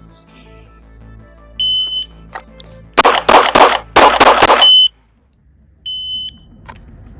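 Electronic shot timer beeping. About three seconds in comes a quick string of loud 9mm shots from a Glock 43X pistol, followed by further short beeps.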